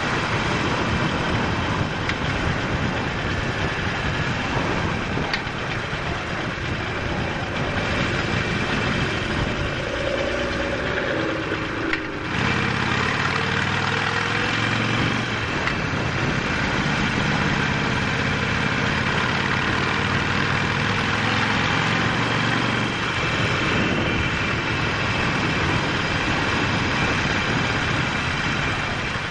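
Harley-Davidson Sportster 48's air-cooled V-twin running under a heavy rush of wind on a helmet-mounted camera. About twelve seconds in, the wind drops and the engine's low, steady note comes through plainly for about ten seconds.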